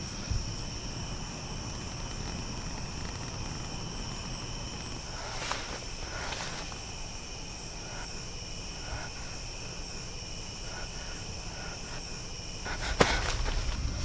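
Crickets chirping steadily in the night, with two faint swishes a few seconds in. Near the end comes a louder rustling with a sharp click.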